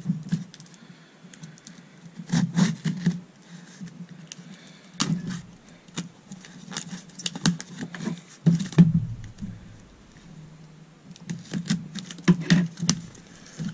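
A cardboard parcel being cut and torn open by hand: scissors snipping the string and packing tape, with cardboard crackling and scraping, in several bursts of sharp crackly clicks.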